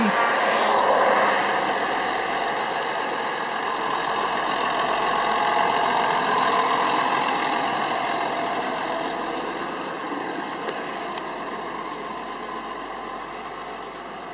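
Massey Ferguson 6475 tractor's diesel engine running as the tractor drives past with a mounted plough, loudest about a third of the way in, then fading steadily as it moves away.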